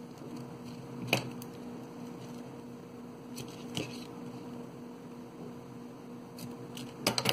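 Quiet handling of yarn and cord, with a sharp click about a second in and another near the four-second mark, then a quick run of scissor snips near the end as the yarn ends of the knots are trimmed; a faint steady hum underneath.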